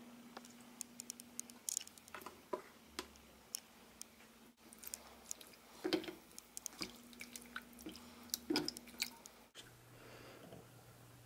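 Faint cooking-handling sounds: light clicks as a measuring spoon of ground cumin is tipped in, then a rubber spatula stirring broth and chicken in a pot, with a few sharper clacks about six and eight and a half seconds in over a faint steady hum.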